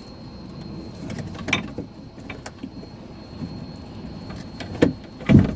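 Hands working at a cut plastic car door panel, trying to break something off behind it: scattered clicks and rattles, with two loud knocks near the end.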